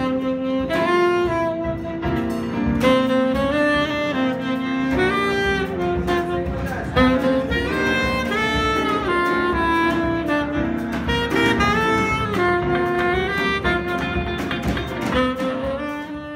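Live jazz combo: a saxophone plays a moving melodic line over a drum kit. The music fades out near the end.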